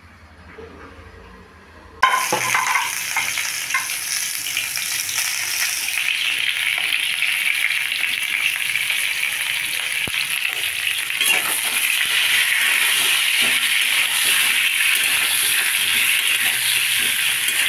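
Peeled whole potatoes frying in hot oil in a pan: a steady sizzle that starts abruptly about two seconds in, with a few light scrapes as a metal spatula turns them.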